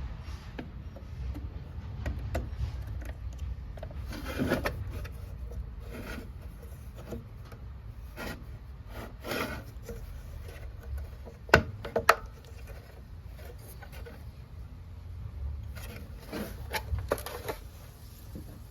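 Plastic parts of a dispenser valve assembly being handled and fitted by hand: scattered rubbing and scraping, with two sharp clicks close together a little past halfway, over a low steady hum.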